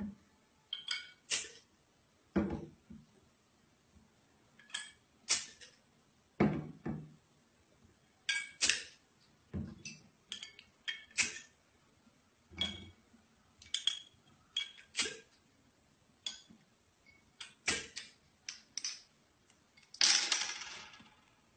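Full glass beer bottles clinking against each other and knocking down onto a tabletop as they are picked up and moved, a few dozen separate clinks and thuds, with a brief rushing noise near the end.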